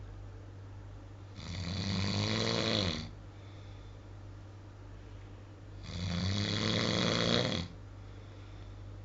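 A sleeping man snoring heavily: two long snores about four seconds apart, each lasting about a second and a half, with a steady low hum underneath.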